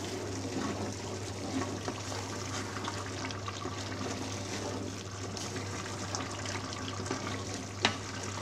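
Chickpeas in a wet onion-tomato masala bubbling and sizzling in a metal cooking pot while being stirred with a spoon, with a steady liquid bubbling and a few light clicks of the spoon against the pot.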